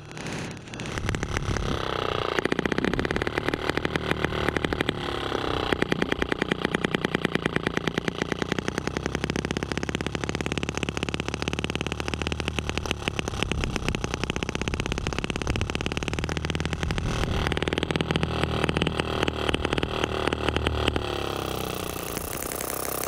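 Eachine ET5 miniature single-cylinder four-stroke petrol engine running, a quick, even train of firing pulses whose speed rises and falls several times. The engine is new and not yet broken in, and it is still being set up to run properly.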